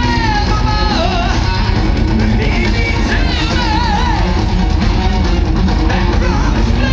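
Power metal band playing live through a main-stage festival PA: a male lead singer holds high, wavering sung lines with vibrato over distorted guitars, bass and drums.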